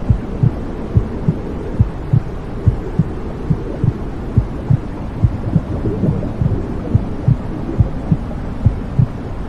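Womb sounds: a mother's heartbeat heard as muffled double thumps, about seventy pairs a minute, over a steady low whooshing rumble.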